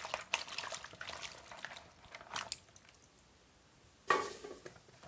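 Hands swishing and rubbing peeled matooke in a plastic basin of water: quick wet splashes and clicks of the bananas knocking together, easing off after about two and a half seconds, with one louder splash about four seconds in.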